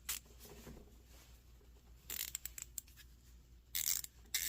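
A freshly reassembled Icon G2 1/4-inch ratchet being worked by hand to check its function: a run of quick, light pawl clicks about two seconds in and short rasping bursts near the end.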